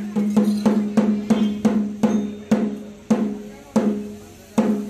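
A drum beaten in a ceremonial rhythm, each stroke ringing at a low pitch: a run of quick strokes about three a second, slowing in the second half to single strokes spaced more widely apart.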